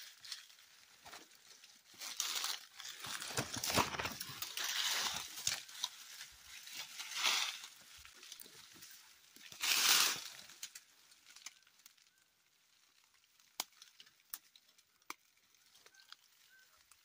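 Dry grass stems and leaves rustling and crackling as someone pushes through dense undergrowth, in irregular bursts with the loudest about ten seconds in, then only a few faint snaps and ticks.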